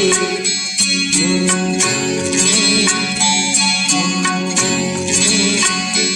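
Instrumental backing music of a Hindi film song, with a steady beat under held melody notes and no singing.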